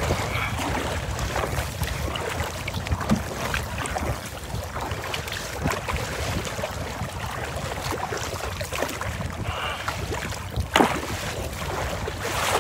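Strong wind buffeting the microphone, with choppy lake waves splashing and slapping against a kayak's hull; one sharper slap comes near the end.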